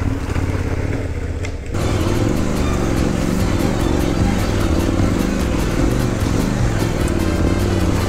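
Adventure motorcycle engine revving unevenly, its pitch rising and falling as the throttle is worked on a rough off-road climb; about two seconds in the sound jumps abruptly louder.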